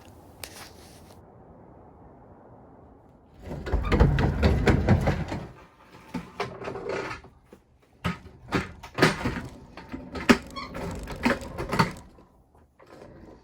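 A cabin door and heavy things being handled: about three seconds in, a couple of seconds of loud low rumbling noise, then a run of knocks, clunks and scrapes.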